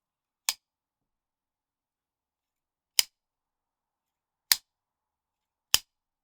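Four sharp, separate metallic clicks, a second or more apart, from hand tools working stainless steel lock wire on the differential's flange bolts.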